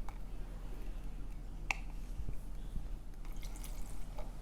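Quiet handling of slime-making supplies: light clicks and taps of small plastic containers, one sharper click a little under halfway through and a cluster of small ticks near the end, with faint drips of liquid.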